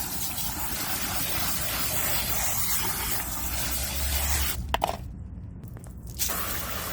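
Water spraying and splashing steadily onto dog bedding being rinsed. It cuts out suddenly for about a second and a half about five seconds in, then starts again.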